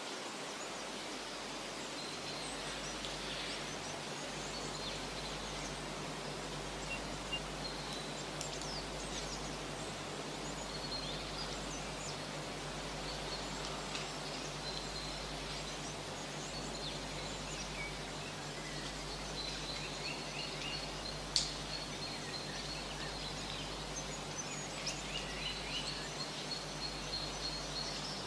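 Outdoor ambience: a steady background noise with scattered short bird chirps and calls, more frequent near the end, and one sharp click a little past two-thirds of the way through.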